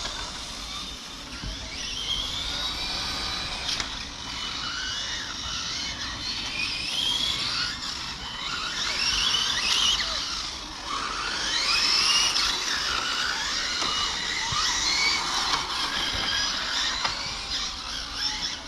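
Several 1/8-scale electric GT RC cars racing, their electric motors whining, rising and falling in pitch over and over as they accelerate and slow through the corners.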